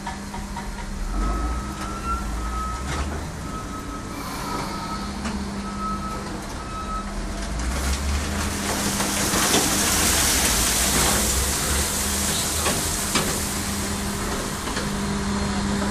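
Concrete block production machinery running with a steady hum, while a warning beeper gives a series of short beeps over the first several seconds. A loud rushing hiss follows from about eight to fourteen seconds in, with scattered knocks.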